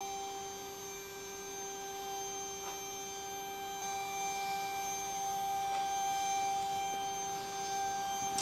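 Stepper motors of a Langmuir Systems CrossFire Pro CNC plasma table whining at a steady pitch as they drive the torch gantry across the table.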